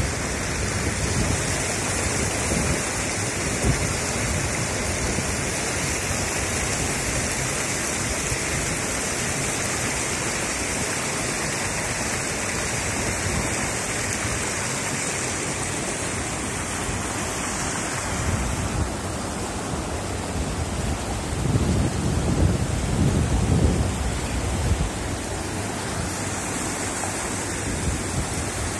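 Steady rush of a flooded river's fast, churning water. A little past two-thirds of the way through, heavier low rumbles of wind buffeting the microphone come and go.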